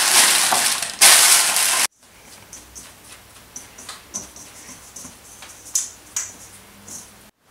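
A paper flour bag rustling and crinkling loudly, cutting off abruptly about two seconds in. Then scattered light clicks and soft taps of a hand working sticky challah dough in a stainless steel bowl.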